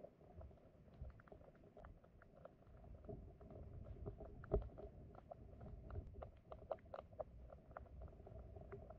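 Flowing stream water heard from beneath the surface: a low, muffled rumble of the current scattered with many small clicks and pops, the sharpest about four and a half seconds in.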